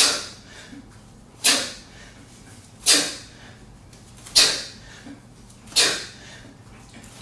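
Sharp, hissing exhale with each kettlebell swing, about every one and a half seconds, five times, each cutting in suddenly and fading within about half a second.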